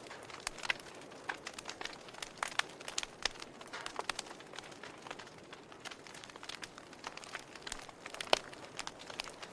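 Wood fire crackling in a fireplace: irregular sharp pops and snaps over a soft steady hiss, with one louder pop near the end.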